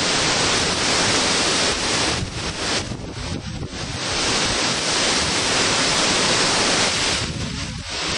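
Category three hurricane wind blowing hard through trees, with wind-driven rain and heavy wind buffeting on the microphone. It eases briefly about three seconds in and again near the end.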